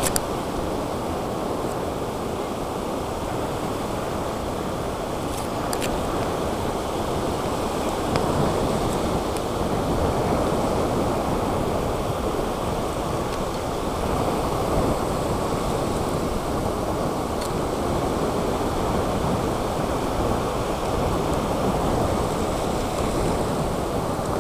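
Low surf breaking and washing up a sandy beach: a steady rushing wash of small waves running up the shore.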